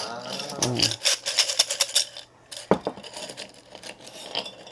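Wooden divination sticks clicking and rattling in a santong, the Korean fortune-teller's tube, as they are shaken and drawn for a reading: a quick rattling run about a second in, a single knock, then a few scattered clicks.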